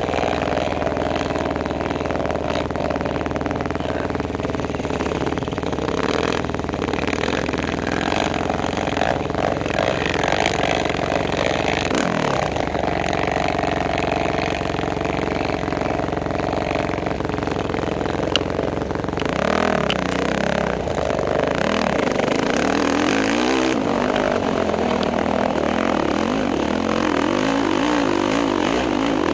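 Polaris sport quad's single-cylinder four-stroke engine idling steadily, with one falling pitch sweep about twelve seconds in. From about twenty seconds on the throttle is worked, the engine revving up and down unevenly, and near the end it runs under load as the quad pulls up a loose-gravel slope.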